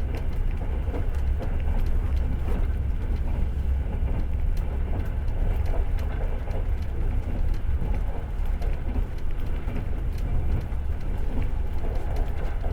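Ride noise of a passenger train heard from inside the carriage: a steady low rumble of the wheels on the rails, with scattered light clicks and rattles.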